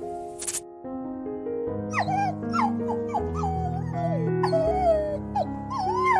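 A small dog, a Pomeranian, whimpering: a string of short high whines, several sliding down in pitch, starting about two seconds in. Soft background music with held notes plays underneath.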